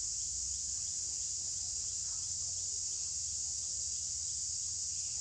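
Steady, high-pitched drone of insects, without a break.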